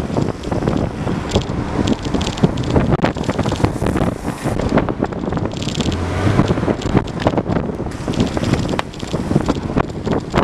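Heavy wind rushing over the microphone at speed, over the rolling rumble of longboard wheels on asphalt.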